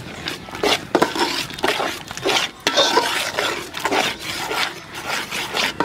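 Metal ladle scraping and clinking against a large aluminium pot, stirring a thick onion-tomato masala that is being fried in oil until the oil separates. Irregular strokes follow one another throughout.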